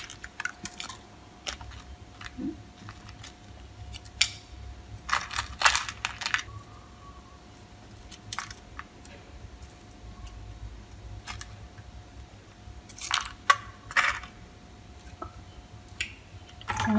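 Metal spoon and chopsticks picking a baked, hardened salt crust off pork belly skin in a foil-lined air fryer basket: scattered light clicks and scrapes of salt crumbs, spoon and foil, with louder clusters about five and thirteen seconds in.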